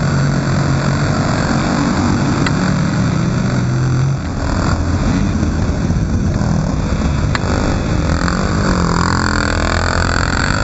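Several motocross bikes' engines running and revving close around the rider. A steady low engine note drops out about four seconds in, and near the end engines rev up and down.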